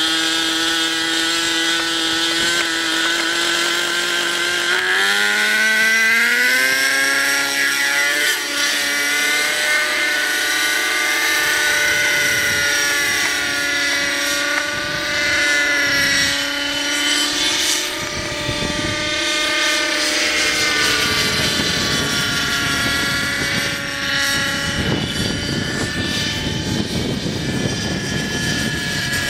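Nitro glow-engined RC helicopter running at a steady high pitch. It spools up, rising in pitch about five seconds in, then rises and falls as it flies.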